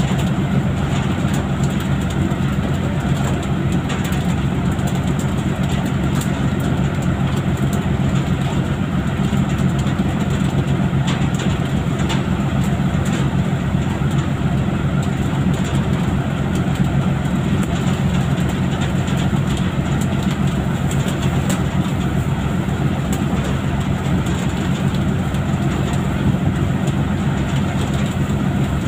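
Fishing boat's engine running with a steady low drone, under a constant wash of rushing water from the sea and the deck hose, with scattered faint clicks.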